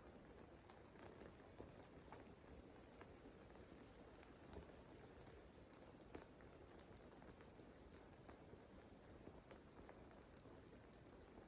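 Faint crackling of a small fire: birch bark, wood chips and twigs just catching, giving a scatter of small sharp pops over a soft hiss.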